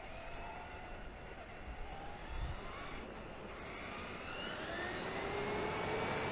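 Electric motor of a Traxxas E-Maxx RC truck whining over a steady hiss. The whine rises in pitch from about two-thirds of the way in as the truck speeds up, then holds.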